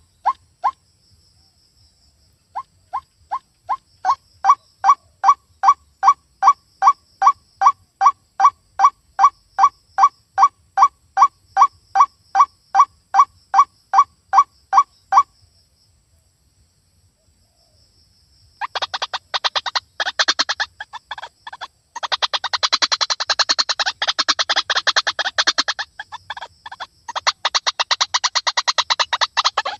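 White-breasted waterhen (ruak-ruak) calling: a long series of evenly repeated pitched notes, about two and a half a second. After a pause of a few seconds, a fast, dense chattering takes over near the end.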